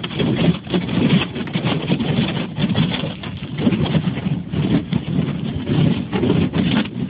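Smoker Craft boat's hull crunching and scraping through sheet ice about four inches thick, in uneven surges, over a running boat motor.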